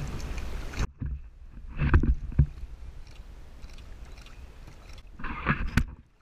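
Sea water slapping and sloshing against a plastic kayak hull, with a few dull knocks and splashes, the loudest about two seconds in and another near the end.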